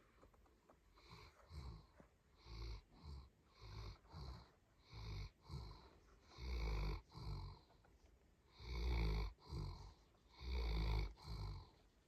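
Dog snoring in its sleep: rhythmic snores about every one and a half seconds, each a longer rattling breath followed by a shorter one, getting louder from about halfway through.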